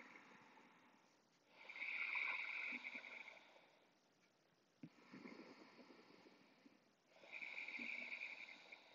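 Faint, slow, deep breathing: long breaths in and out, each rising and fading away, about one full breath every five to six seconds.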